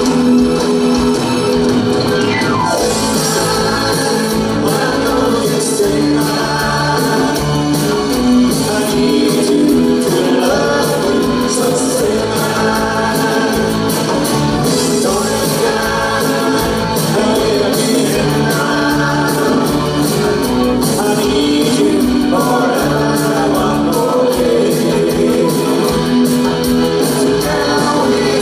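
A live pop band playing, with a male lead singer over guitars, piano and drums.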